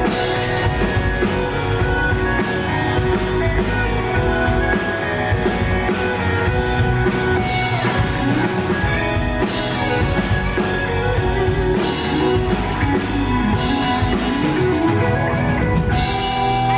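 Live pop-rock band playing the instrumental outro of a song: guitars and drum kit, without vocals. About a second before the end the playing gives way to a held, ringing chord.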